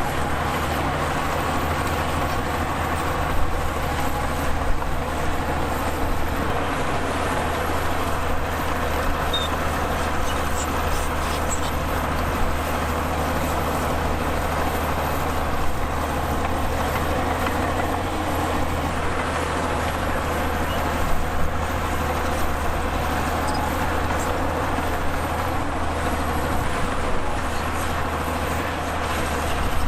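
Heavy diesel earthmoving machinery running steadily at a deep, constant drone, with a few brief knocks over it.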